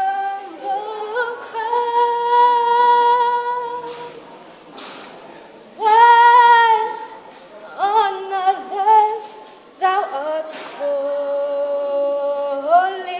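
A young woman singing solo a cappella, in slow phrases of long held notes, with breaths between phrases.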